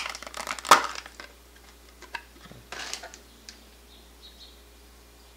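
Clear plastic clamshell case clicking and snapping as it is opened by hand, with one sharp crack under a second in, then a few light clicks and a short rustle as the blue SOIC test clip is lifted out.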